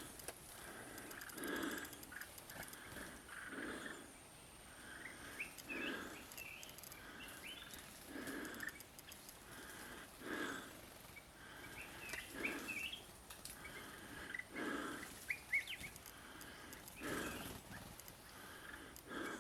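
Heavy breathing close to the microphone, a soft breath about every two seconds, with faint small bird chirps in between.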